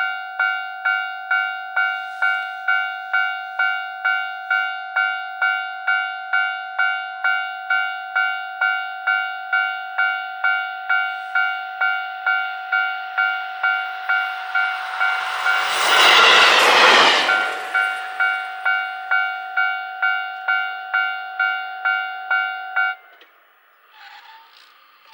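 Japanese level crossing warning bell dinging steadily, about twice a second. A train passes loudly over the crossing about fifteen to eighteen seconds in. The bell cuts off suddenly near the end.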